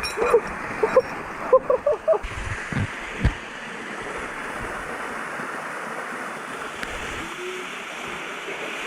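Steady rushing noise of running water in a canyon, with a few brief chirp-like sounds and a couple of low thumps in the first three seconds.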